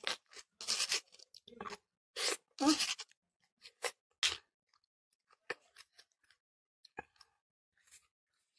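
Close-miked eating: a plastic spoon scraping pieces of fried tofu out of a stone mortar and mouthfuls being chewed. The sounds come in short bursts during the first four seconds, then only a few soft clicks.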